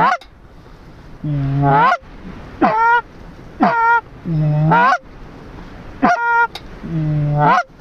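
A hand-blown goose call honking in a steady cadence: about seven loud honks, roughly one a second. Some start as a low moan that breaks upward, others are short high notes.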